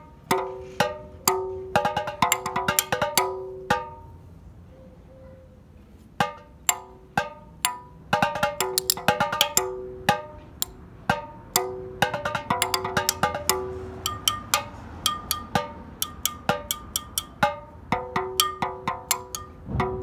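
Homemade balloon bongos, balloons stretched over two containers, struck with plastic spoons in quick rhythmic runs. Each hit is a short pitched tonk, and the two drums give a lower and a higher note. There is a break of about two seconds about four seconds in.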